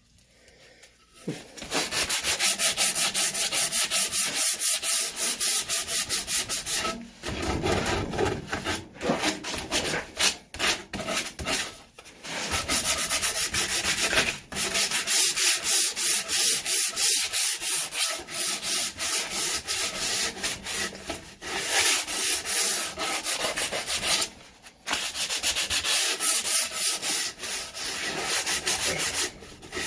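60-grit sandpaper scraping back and forth along a wooden axe handle in rapid, repeated strokes, taking off the slippery factory finish. It starts about a second in and pauses briefly a few times.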